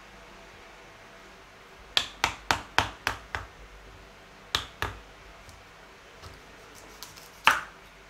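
A large kitchen knife cutting through a whole pumpkin on a wooden cutting board: a quick run of about six sharp knocks about two seconds in, two more a couple of seconds later, and a louder, fuller knock near the end as the pumpkin comes apart in halves.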